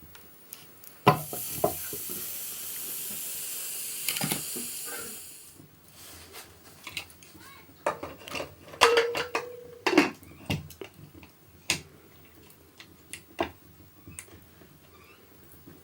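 A metal clank, then a steady sizzle for about four seconds that fades out, like food hitting hot oil in a pan. After it come scattered clinks and knocks of metal utensils against a cooking pot, one briefly ringing.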